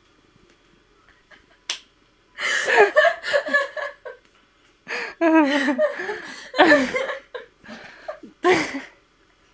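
People laughing in three stretches of choppy, pitched bursts, with a short sharp click just before the laughter starts.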